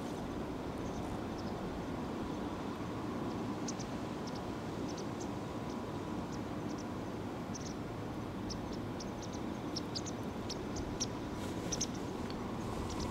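Steady outdoor background hum with many brief, high chirps scattered through it, more of them in the second half.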